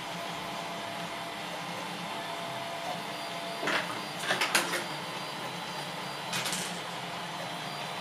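A 3D printer running a nylon print: a steady fan whir with a faint steady whine. A few short, sharp scratchy clicks come about halfway through, and one more a little later.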